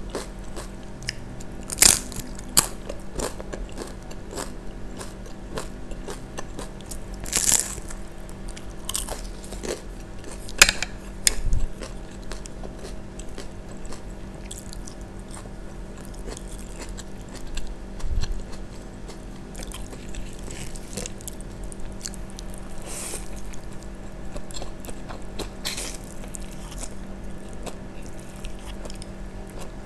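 Close-miked eating: crisp crunching bites into a rempeyek peanut cracker, then chewing of instant noodles and fresh vegetables. Sharp crunches come several times, most in the first half, between quieter chewing, over a faint steady low hum.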